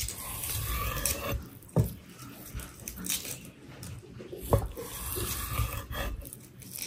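A large chef's knife slicing through raw meat on a wooden chopping board, with soft scraping and two sharp knocks as the blade comes down on the board, about two seconds in and again about four and a half seconds in.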